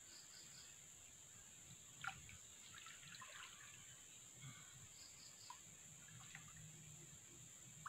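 Near silence, with faint drips and small splashes of water and a brief soft knock about two seconds in, as a softshell turtle is pulled by hand from shallow creek water.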